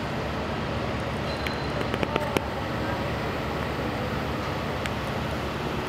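Aerial ladder fire truck's engine running steadily with a low drone, and a few sharp clicks about two seconds in.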